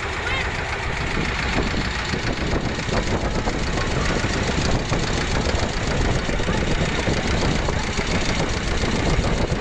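Engine of a small passenger boat running steadily under way, with wind and water noise as the boat crosses choppy harbour water.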